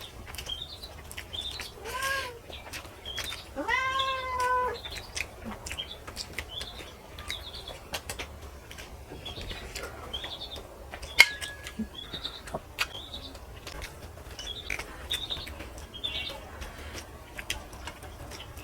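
Domestic cat meowing: a short meow about two seconds in, then a longer, drawn-out meow that rises and falls.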